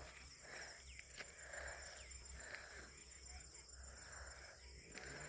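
Faint evening chorus of crickets: a steady, high-pitched shrill that runs on unbroken, with a few sharp clicks.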